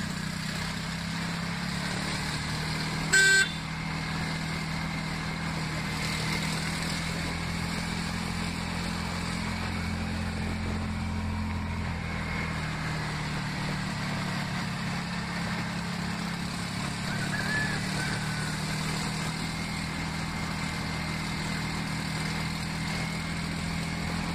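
Steady engine hum and road noise of a moving vehicle, heard from inside it. About three seconds in comes a single brief, loud horn beep.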